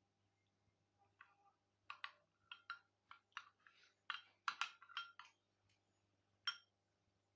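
Metal spoon clinking against a cut-glass bowl as it stirs thick chocolate sauce: a run of about a dozen faint, uneven clinks starting about a second in, the last one near the end.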